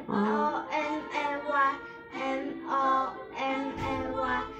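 A young boy singing a simple children's song over instrumental backing, in a string of short held notes.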